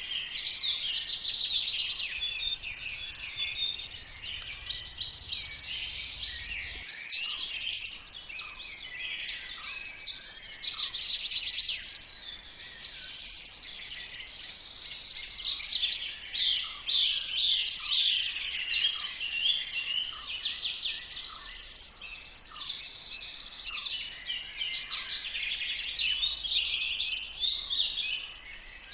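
Many birds singing and calling at once: a dense morning chorus of overlapping high chirps, trills and short whistled phrases.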